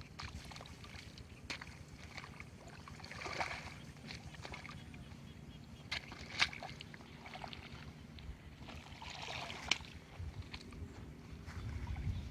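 Water splashing and sloshing in two swells of about a second each, with a few sharp knocks between them.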